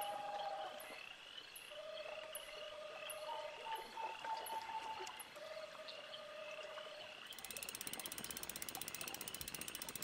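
Frogs calling at night: trilled calls about a second long, one after another, over a chorus of short, quick high chirps. About seven seconds in, a fast, even ratcheting click starts and keeps going.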